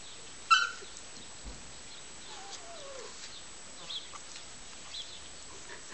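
Tosa puppies at play: a short, loud high yelp about half a second in, then a falling whine a couple of seconds later, with a few faint high chirps after.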